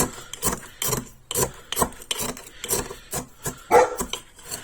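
A teaspoon scraping repeatedly, about three strokes a second, as brown cane sugar is spooned and stirred into a cup of coffee.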